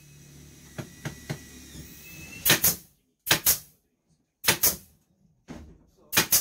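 Pneumatic nail gun firing four times, each shot a sharp double pop, about a second apart, with a few light clicks before the first shot.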